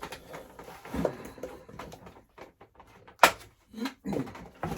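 Cardboard action-figure box being worked open, its packaging tape pulled: irregular rustling and scraping, with one sharp snap about three seconds in, the loudest sound, and a few dull knocks after it.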